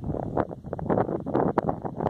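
Wind buffeting the microphone: an uneven, gusting rumble.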